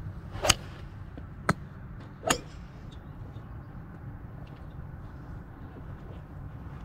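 Golf iron striking a ball off a range mat about half a second in: a sharp crack, the loudest sound. Two more sharp clicks follow about one and two seconds later, over a steady low rumble.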